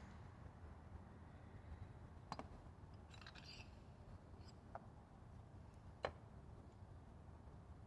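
Near silence with a few faint, sharp clicks, three of them spaced a couple of seconds apart, like small metal parts or tools being handled.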